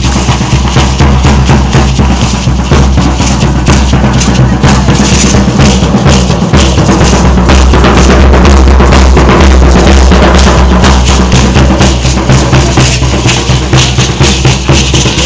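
Loud, fast drumming for a dance, with bass drum and snare beating a dense steady rhythm.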